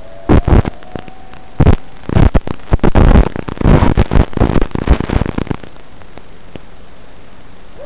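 Steady hiss from an analog FPV video downlink, with loud irregular bursts of static crackle as the radio signal breaks up through the first five and a half seconds, then steady hiss again.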